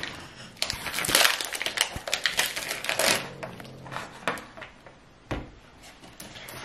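A foil food pouch crinkling and rustling as it is pulled open and its potato noodles tipped out, in irregular crackly bursts that are loudest over the first three seconds, with a single light knock about five seconds in.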